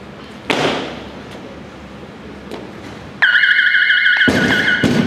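A thump about half a second in, then the referees' electronic down signal: a loud warbling two-tone buzzer from about three seconds in, marking a lift judged complete. About a second later a loaded Eleiko barbell with bumper plates is dropped from overhead and crashes onto the wooden lifting platform.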